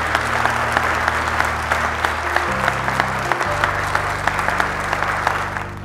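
A crowd applauding, the claps dense and crackling, over music with sustained low notes that change a few times; the applause fades away just before the end.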